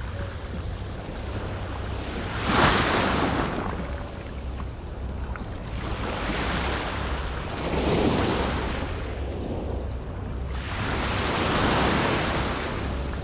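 Small waves breaking and washing up a sandy beach in three surges of hiss, the first about two and a half seconds in being the loudest and sharpest. Under them is a steady low rumble of wind on the microphone.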